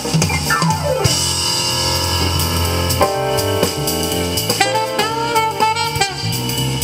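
Thai Isan-style song played loud through a pair of LSM FR112M PA loudspeakers during an instrumental break: a melodic lead over drum kit and bass, opening with a quick falling run.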